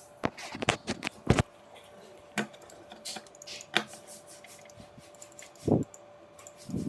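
Irregular sharp clicks and knocks of desktop computer parts being handled, with a faint steady hum underneath.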